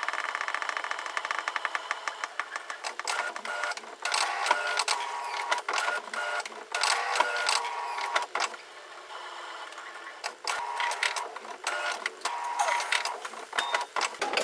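Printer running a maintenance cycle: its motors whir and click in runs that stop and start, with a fast rattle of clicks at first.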